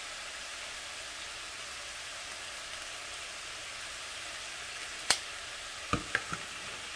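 Stir-fry vegetables frying in a skillet on an electric stove, a steady sizzle. A sharp click about five seconds in and a few light knocks about a second later.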